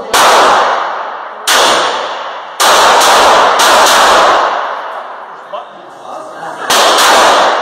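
Handgun shots on a shooting range: about eight shots in irregular groups, a pair near the start, a quick cluster in the middle and a pair near the end. Each shot has a long echoing decay.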